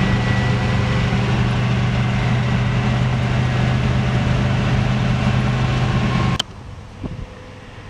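Inside the cabin of a 1956 Chrysler Windsor wagon cruising at highway speed: the steady drone of its 354 Hemi V8 mixed with road and wind noise. It cuts off suddenly about six seconds in, giving way to much quieter outdoor background with a single light knock.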